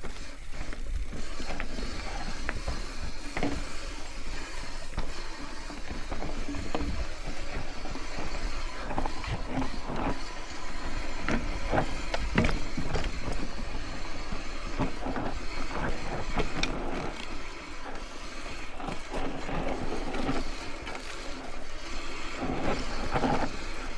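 Mountain bike being ridden down a rocky, technical dirt trail: tyres rolling and crunching over dirt and rock, with many irregular clicks and knocks from the bike rattling over the bumps, over a steady low rumble of wind on the microphone.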